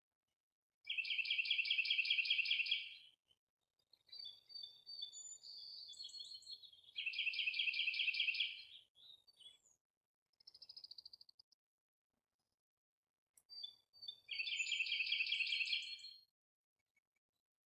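Songbird singing: a loud, rapid, high trill of about two seconds, given three times about six seconds apart, with softer chirps and short trills between.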